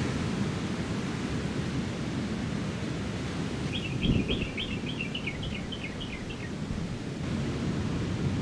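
Steady rush of ocean surf with wind on the microphone, briefly louder about four seconds in. A bird calls a quick run of about ten high chirps partway through.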